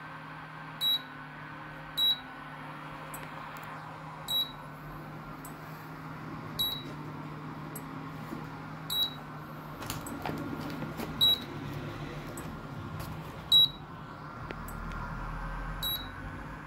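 Induction cooker stuck on error E0, ticking about every two seconds over a steady low hum. Each tick is a short click with a brief high ring. The ticking comes with no induction heating, a fault the repairer traces to the controller chip.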